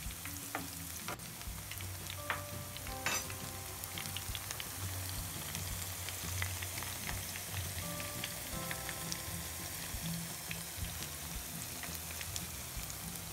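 Piyaju (onion, lentil and beef fritters) deep-frying in a pan of hot oil: a steady sizzle with fine crackling. There are a few light clicks about one and three seconds in.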